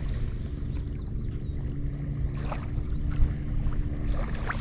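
Wind rumbling on the microphone over a steady low hum, with faint short high chirps and a few light clicks.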